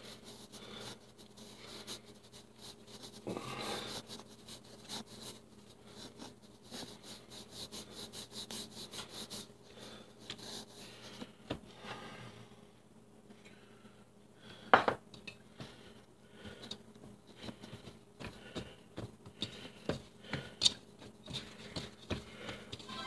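Hands kneading soft sourdough dough in a mixing bowl: soft rubbing and squishing with many small taps and scrapes against the bowl, and one sharp knock about two-thirds of the way through.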